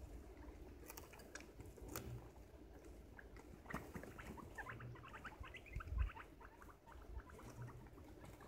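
Guinea pigs gnawing and crunching on a raw cauliflower head: quick, faint crunchy clicks, thickest in the middle. About six seconds in there is a single dull thump.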